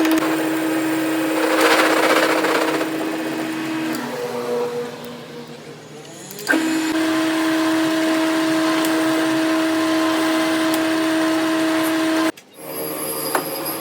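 An electric motor on a workshop machine running with a steady hum, with a rushing, gritty cutting sound about two seconds in. The hum stops about four seconds in, returns about two and a half seconds later, and drops out briefly near the end.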